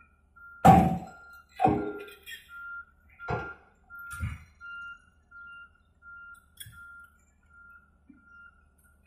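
Heavy metallic clanks with a ringing tail, four spaced about a second apart and a fainter one later, as steel excavator tracks climb onto a trailer's steel ramp. A short high beep repeats steadily behind them, like a travel alarm.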